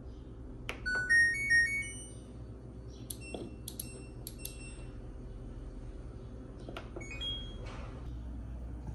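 LG washer-dryer's control panel: a button click and its short tune of rising stepped notes, then a quick run of beeps as the program dial is turned, and near the end another click followed by a short chime.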